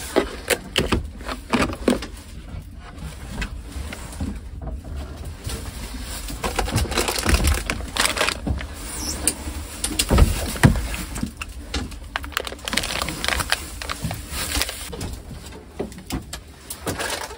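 Handling noise as a blue plastic cooler is unlatched, opened and unpacked: irregular clicks, knocks and rustling of packages.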